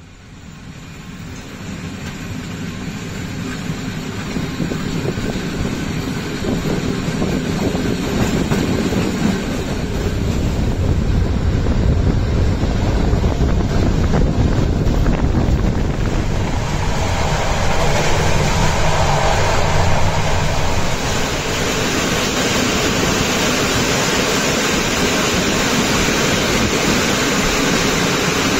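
Bo-type (Poznań-built) passenger coach running along the track, its wheel and rail noise mixed with wind, growing louder over the first several seconds and then steady.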